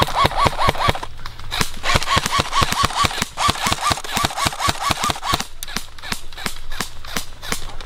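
Airsoft rifles firing fast strings of shots, about six or seven a second, each shot a sharp click with a short rising-and-falling whine. The firing breaks off briefly twice, then thins to scattered, fainter shots about two-thirds of the way through.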